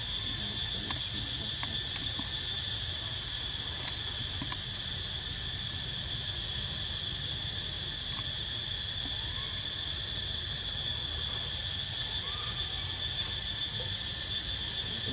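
A steady, high-pitched chorus of insects droning on several pitches at once, over a low rumble.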